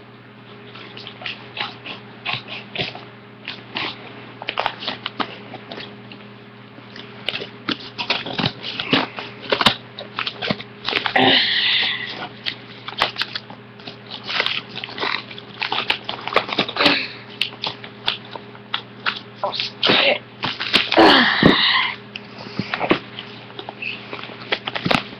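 A shipping package being opened by hand: irregular rustling, crinkling and clicking of the wrapping, with louder tearing or ripping bursts about 11 seconds in and again about 21 seconds in. A steady low hum runs underneath.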